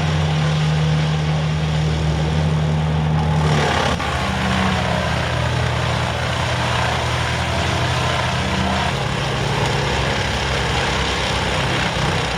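Heavy forestry machine engine running steadily under load, with a shift in its pitch and load about four seconds in.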